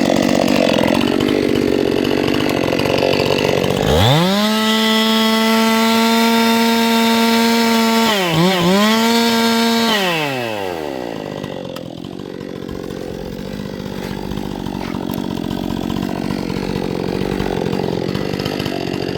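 Two-stroke chainsaw running loud and rough, then revving up to full throttle about four seconds in, holding high with a brief dip, and dropping back about ten seconds in; after that it runs quieter.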